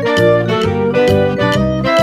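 Instrumental background music: a bright melody over a steady beat of about two strikes a second.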